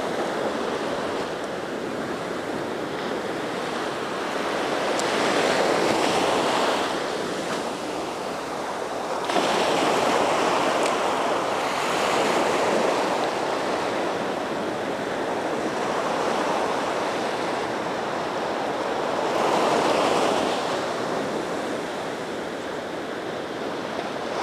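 Small ocean waves breaking and washing up a sandy beach, the surf rising and falling every few seconds as each wave comes in, one swelling suddenly about nine seconds in.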